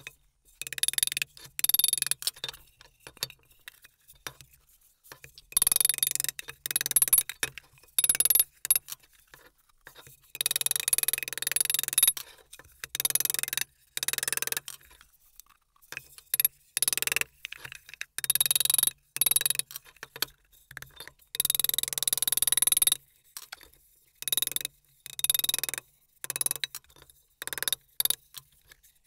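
A hammer tapping dents out of the thin sheet-steel housing of a lead casting pot on a steel workbench: quick runs of light metallic blows that ring, broken by short pauses.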